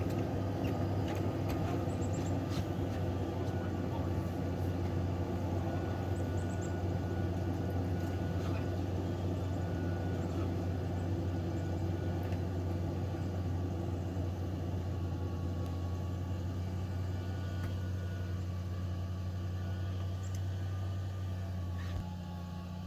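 Steady low mechanical rumble, like a running motor or vehicle, with a constant low hum; it drops slightly near the end.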